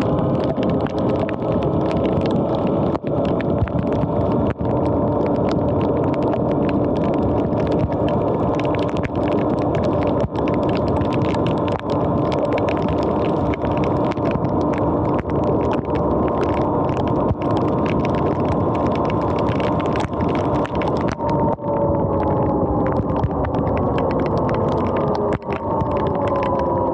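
Sur-Ron X electric dirt bike under way on wet pavement: a steady whine from the electric motor and drive over a constant hiss of tyres on the wet surface and wind, with frequent sharp ticks. Near the end the whine falls in pitch as the bike slows.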